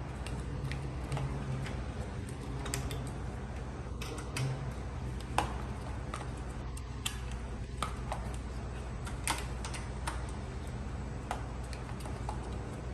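Scattered, irregular light clicks and taps of scooter parts and tools being handled as the handlebar head is fitted, over a steady low hum.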